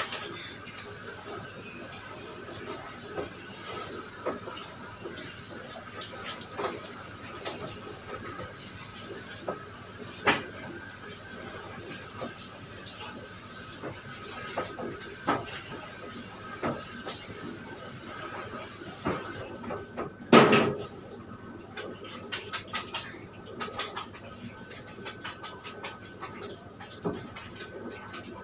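Handheld pet-grooming shower sprayer hissing steadily as water runs onto a dog's coat in a stainless-steel tub, with scattered knocks. The spray cuts off suddenly a little before two-thirds of the way in, a loud knock comes about a second later, and scattered small clicks and taps follow.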